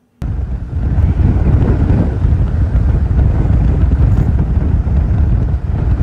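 Storm-force wind buffeting a phone's microphone as a loud, gusting rumble, with waves crashing ashore against a seawall under it. It cuts in abruptly from silence.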